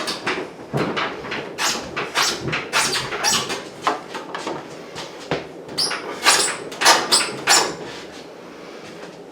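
Irregular scraping, rustling and light knocks of hands working on an appliance and its vent hose, two or three strokes a second, dying down near the end.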